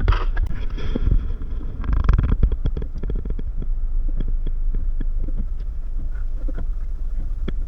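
Steady low rumble of a car cabin in slow traffic, with irregular raindrop taps on the car body and a brief louder wash of noise about two seconds in.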